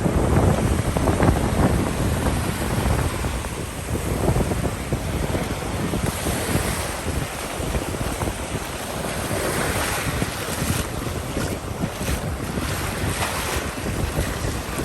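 Ocean surf breaking and washing up the beach, with wind buffeting the microphone, heaviest in the first few seconds.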